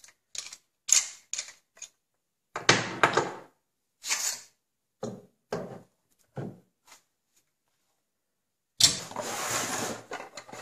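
Clicks and clacks of a pump shotgun's forend being worked and slid off its action bars, with a louder clattering cluster about three seconds in and scattered knocks after. Near the end comes a longer, louder rustling scrape of handling close to the microphone.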